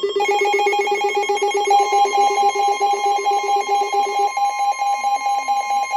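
Several NOAA weather radio receivers sounding their alert alarms at once for a tornado warning: rapid pulsing electronic beeps at different pitches, a higher one joining just after the start and a lower one cutting off about two-thirds through, over a steady high warning tone.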